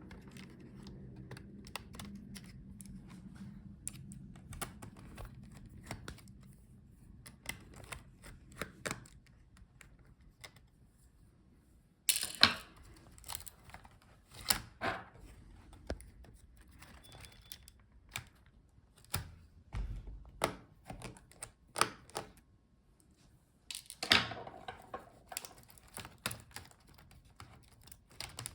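Clicking and tapping of small plastic and metal laptop parts and tools being handled while a laptop is taken apart: screws, connectors and the motherboard being worked loose, with a few louder knocks.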